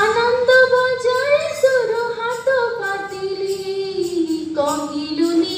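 A woman singing an Odia devotional song: one long wordless held note that wavers, then glides slowly down.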